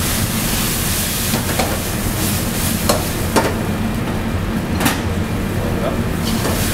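Vegetables sizzling in a steel wok over a gas burner after a splash of white wine. Four or five sharp metal clinks of utensils against the wok come through the middle, the loudest about three and a half seconds in.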